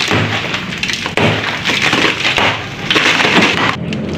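Hammer blows knocking out the concrete and hollow-block wall of a tomb niche, with the masonry cracking and crumbling.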